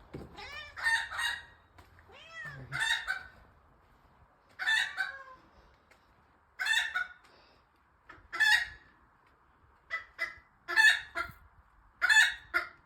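Hen cackling in loud, repeated squawks, coming faster near the end: the call hens give to announce a freshly laid egg. A cat meows a few times in the first seconds.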